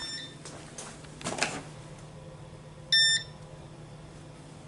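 Fire alarm control panel beeping: a faint short beep at the start and a loud, clear beep of about a quarter second about three seconds in. A few light knocks come in between, over a low steady hum.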